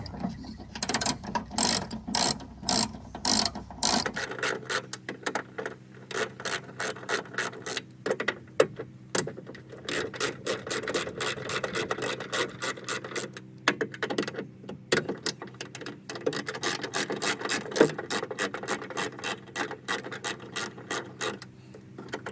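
Ratchet wrench clicking in long runs of quick strokes, working on the fasteners of the window regulator inside the car door.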